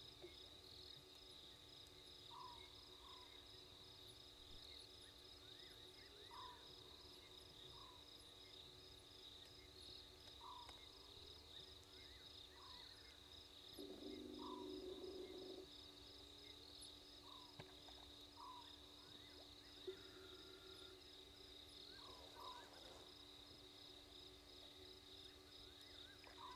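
Faint night insect chorus: crickets trilling steadily and high, with short chirps from other callers every second or two. About halfway through, a brief low whirr comes from the remote camera's pan-and-zoom motor.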